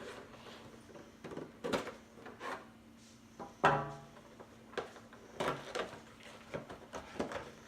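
A small cardboard box being cut open and handled on a table: scattered scrapes, taps and knocks, the loudest a sharp knock about three and a half seconds in.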